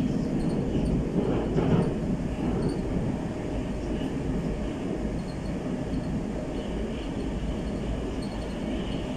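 Moscow Metro 81-765/766/767 "Moskva" train running through a tunnel, heard from inside the carriage: a steady rumble of wheels on rails, briefly louder about two seconds in.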